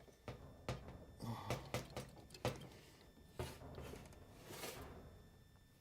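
Faint, scattered clicks and knocks of a makeshift tool working on metal as the oil fill plug of an electric jackhammer is tightened.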